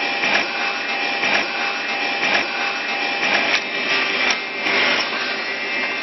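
Three-angle woodworking drilling machine for chair parts running: a steady motor whine under noise that swells about once a second.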